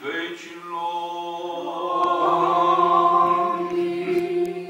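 Orthodox liturgical chant sung by a man's voice, drawn out on long held notes that swell louder about halfway through.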